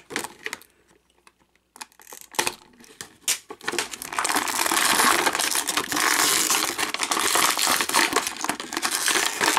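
Clear plastic clamshell packaging crinkling and crackling as an action figure is worked out of it by hand. A few scattered clicks at first, then continuous crinkling from about four seconds in.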